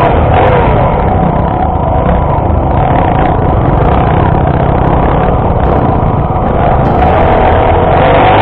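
Honda XR250 Tornado's single-cylinder four-stroke engine running under way, its pitch shifting slightly up and down, with wind rumbling heavily on the microphone.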